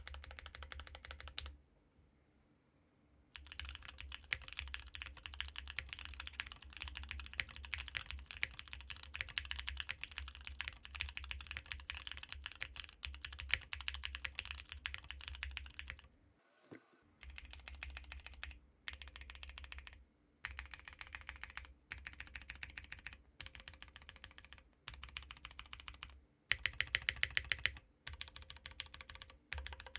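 Mechanical keyboard with stock JWICK Black linear switches on a 1.6 mm PCB with 50A tadpole gaskets, typed on quickly in runs of fast clicks with short pauses. The clicks stop briefly about two seconds in, where the test changes. Near the end comes a run of louder, evenly spaced keystrokes.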